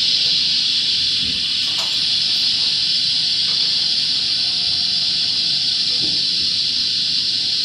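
Loud, steady hiss of rushing air, most likely ventilation air blowing through a flexible duct. It runs unchanged while the welding arc is struck on the stainless-steel pipe, so the arc itself is barely heard.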